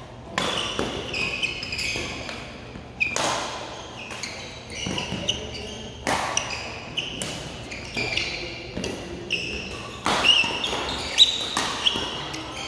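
Badminton rally in a large hall: a string of sharp racket strikes on the shuttlecock, a second or a few apart, with sneakers squeaking on the court between them.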